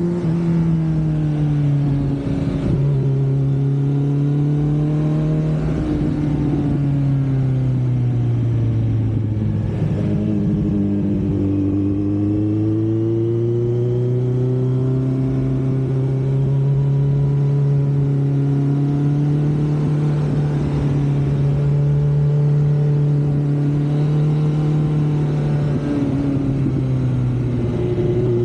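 Kawasaki Z900 inline-four engine and exhaust heard from the bike while riding. The engine note falls off twice early on, holds steady through the middle and dips then climbs again near the end, with wind noise on the microphone underneath.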